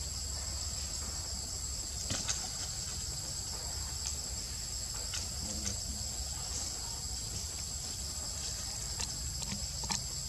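Steady insect chorus in forest: a continuous high buzz with a thin unbroken whine above it. A few faint short clicks are scattered through it.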